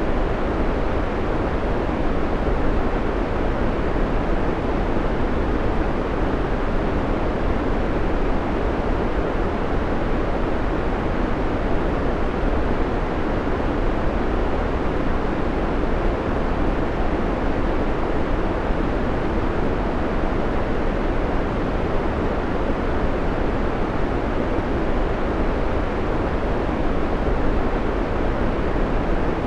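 Steady white noise: a constant, unchanging hiss, fuller in the low and middle range and thinner in the highs.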